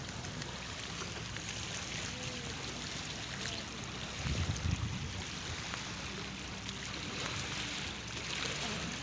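Shallow seawater washing and trickling among pebbles and rocks at the water's edge, a steady watery hiss, with a brief low rumble about four seconds in.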